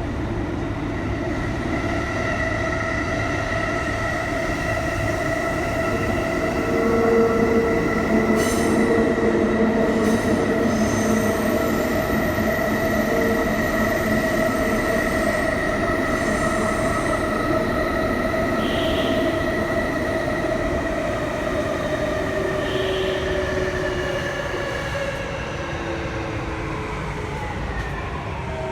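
Kintetsu 3220 series train running in a subway tunnel, heard inside the car: the Hitachi IGBT VVVF inverter and traction motors give a steady whine of several tones over rumbling wheel and track noise. There are brief wheel squeals in the middle. Near the end the whine falls in pitch as the train slows for the next station.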